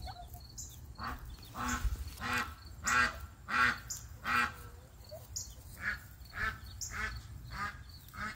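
White domestic turkeys calling: about a dozen short calls, one every half second or so, with a brief pause around five seconds in.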